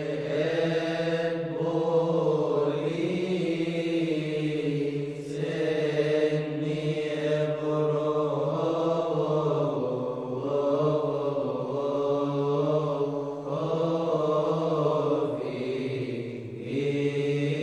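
Background music of chanted sacred vocals: voices chant a slowly moving melody in phrases over a steady low held drone.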